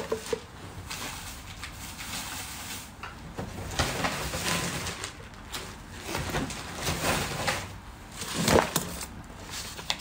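Irregular rustling and knocking from things being handled and moved close to the microphone, with a louder thump about eight and a half seconds in.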